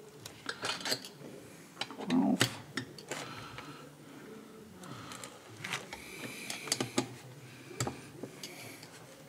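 Irregular clicks and metallic clinks of a wrench being worked on the cylinder bolts of a Stihl MS 391 chainsaw engine as they are torqued down, a few with a short metallic ring. The loudest is a thump about two seconds in.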